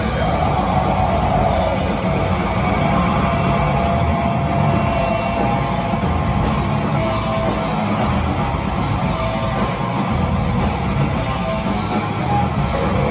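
Death metal band playing live: heavily distorted electric guitars over a drum kit, loud and continuous, with some held guitar notes standing out.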